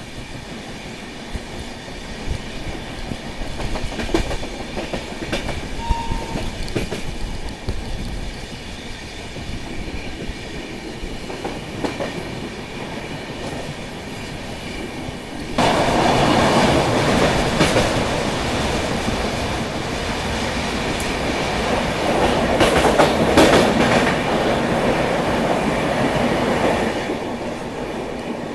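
Moving passenger train, heard from the side of a coach, its wheels clicking over the rail joints. About halfway through, the noise jumps suddenly to a much louder rush, which lasts about ten seconds before easing.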